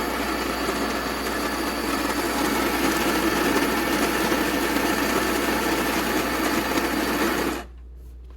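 KitchenAid KCG8433BM burr coffee grinder's motor running steadily while grinding coffee beans, then cutting off suddenly about seven and a half seconds in.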